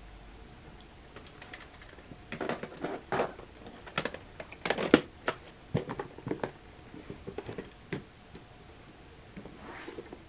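Plastic VHS clamshell cases being handled: an irregular run of sharp clicks, taps and short rustles as the cases are opened, shut and set down, busiest in the middle and trailing off near the end.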